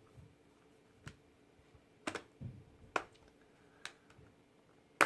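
A Surface Pro 4 tablet being pressed into a UAG protective case: a handful of separate clicks and knocks, the loudest and sharpest one near the end as the tablet snaps into place.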